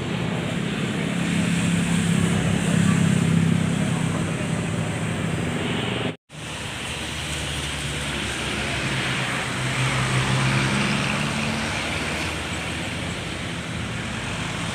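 Steady engine rumble with a low drone that swells and fades. The sound cuts out abruptly for a moment about six seconds in, then resumes.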